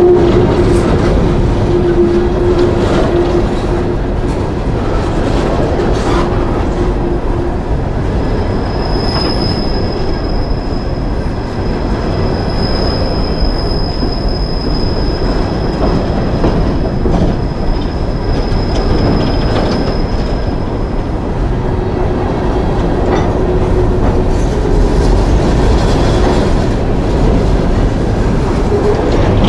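Loaded-length coal train of open-top hopper cars rolling past close by: a continuous rumble and clatter of steel wheels on rail. A high, steady squeal holds from about nine seconds in to about twenty-one seconds, and a lower steady whine sounds at the start and again near the end.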